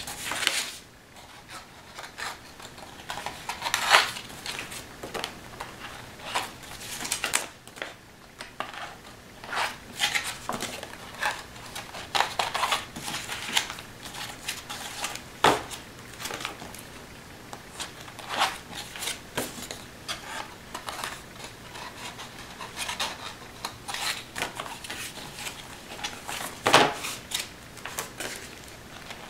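Paper and card pages being handled, shuffled and stacked onto a journal's binding, with irregular rustles, light taps and clicks. The sharpest tap comes about four seconds in.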